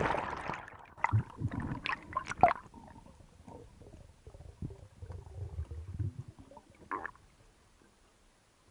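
Free diver's gear heard underwater: water gurgling and bubbling, muffled by the water. There is a rush of noise at the start, a few sharp clicks and knocks about one to two and a half seconds in, a low rumble after that, and a short burst near the end.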